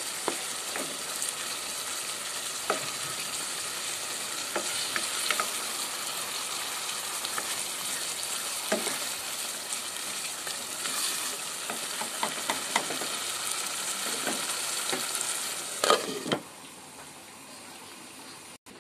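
Beef liver curry sizzling in a nonstick pot while a spatula stirs it, with scattered scrapes against the pot. Near the end a glass lid clatters onto the pot and the sizzling goes quieter.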